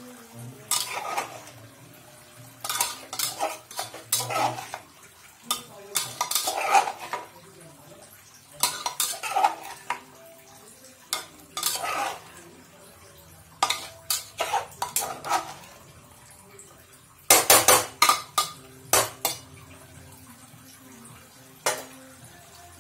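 Metal spatula stirring vegetable pieces in a metal pressure cooker pot, scraping and clanking against its sides and bottom in irregular bursts. The loudest run of clanks comes about seventeen seconds in.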